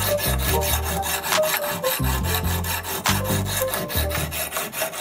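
A sharpening stone on a rod-guided sharpener rubbing back and forth along a steel axe blade's edge with a rasping scrape, over background music with a bass line.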